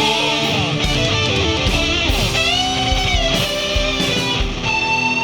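Rock music led by electric guitar, with low beats about once a second.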